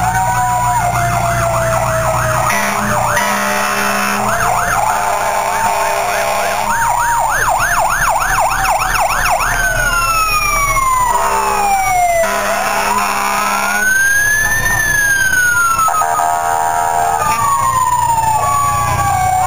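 Sirens of several fire engines sounding together in a slow drive-by: a fast warbling yelp of about three sweeps a second through the first half, then long slow wails that fall, rise and fall again. The trucks' engines rumble underneath.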